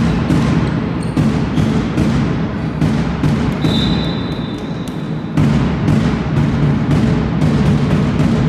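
Game sounds in an echoing sports hall: a rapid, irregular run of thuds and knocks over a crowd rumble, with a single whistle blast of under two seconds near the middle.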